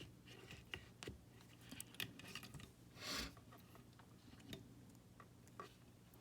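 Faint, scattered small clicks and rustles of hands working the thin twisted-pair wires of an Ethernet cable, with one brief soft burst of noise about three seconds in.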